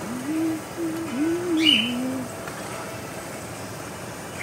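A bird's low cooing call in a few arching phrases over the first two seconds, above the steady sizzle of plantain slices frying in oil in a pan. A short high chirp sounds about a second and a half in and again at the end.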